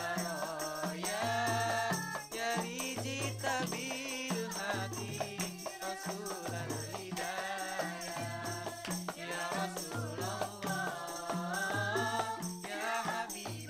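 Qasidah music: a teenage boy sings the lead with others singing along, backed by beaten rebana frame drums and jingling tambourines, over a low note that repeats in a steady rhythm.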